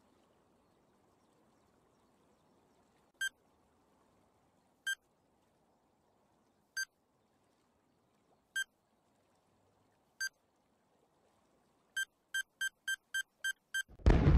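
Bomb countdown timer sound effect: single electronic beeps every couple of seconds, then a fast run of about seven beeps in under two seconds, ending in a loud explosion near the end.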